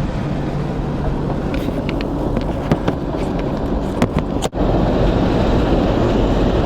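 Vehicle driving, a steady low rumble of road and engine noise with a few light clicks and rattles; the sound drops out for an instant about four and a half seconds in.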